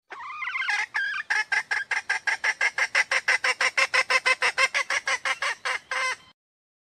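Red junglefowl hen calling: a drawn-out opening note, then a fast run of short, evenly repeated notes, about six a second, ending on a longer note and cutting off suddenly.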